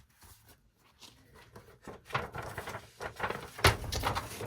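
Paper rustling and crackling as an album's folded poster is handled, with a sharp crackle about two thirds of the way in.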